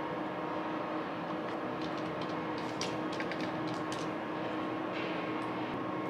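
Steady drone of city traffic with a constant hum underneath. Light scratchy clicks of a pen writing on paper come and go through the middle.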